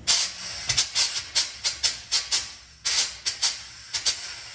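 Compressed air hissing in a quick, irregular string of short spurts from the foot-pedal air valve of a cylinder-head machine, as the pedal is tapped on and off to float the head fixture on air.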